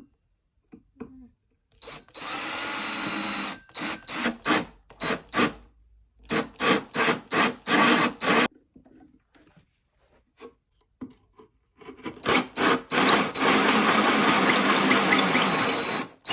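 Power drill boring a hole into a wooden board, its motor run in many short trigger bursts between longer steady runs, with a pause of a few seconds midway.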